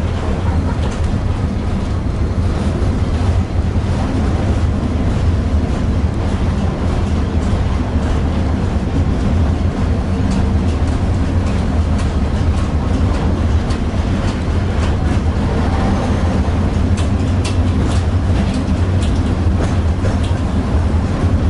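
Tatra T6B5SU tram running along its line, heard from inside the passenger car: a steady low rumble of wheels on rails and running gear. A run of sharp clicks and rattles comes near the end.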